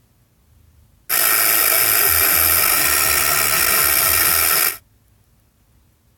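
Loud white noise, a steady full-range hiss, blaring from the centre speaker of a 2015 Ford Focus's Sync 2 audio system because of a Sync 2 fault. It starts suddenly about a second in and cuts off suddenly nearly four seconds later.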